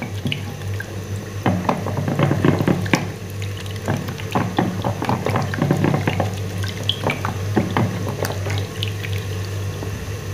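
Wooden madhani (hand churner) spun back and forth by hand in a plastic bowl of thick yogurt, churning out the lumps: irregular wet sloshing and slapping with quick clicks throughout.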